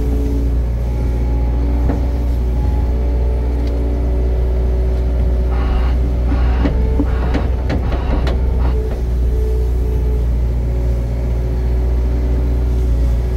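Engine running steadily with a deep rumble, with a spell of rattling and clanking from about six to nine seconds in.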